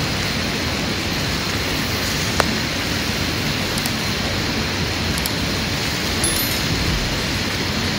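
Steady hiss of rain falling, even and unbroken, with a single sharp click about two and a half seconds in.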